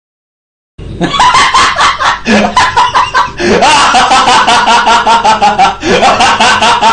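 A person laughing without a break in quick, repeated ha-ha bursts, starting suddenly about a second in.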